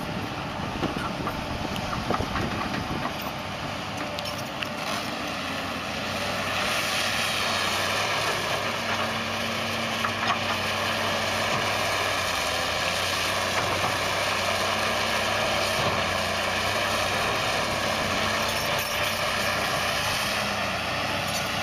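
Diesel engines of heavy machinery running steadily: a tractor hauling a loaded dump trailer, then a CASE crawler excavator working. The sound grows louder about six seconds in, with a steady high whine over the engine.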